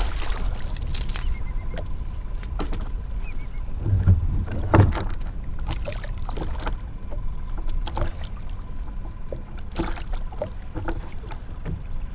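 Water slapping against a kayak hull, with wind rumbling on the microphone. A hooked snook thrashes alongside, making several sharp splashes; the biggest comes about five seconds in.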